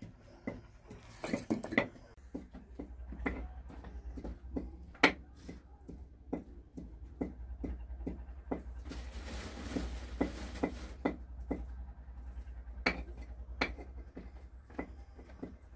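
Cooking utensils and dishes knocking and clinking as they are handled, in many short irregular knocks, with a brief hiss about nine seconds in and a steady low hum underneath.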